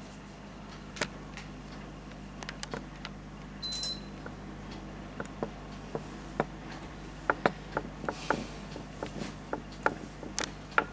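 Irregular light clicks and taps of writing, coming more often in the second half, with a brief high squeak about four seconds in, over a steady low hum.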